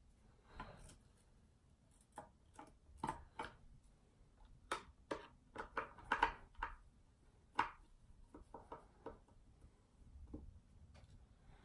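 Faint, irregular clicks and light knocks of hand tools and small parts being handled, about a dozen sharp taps, most of them bunched around the middle.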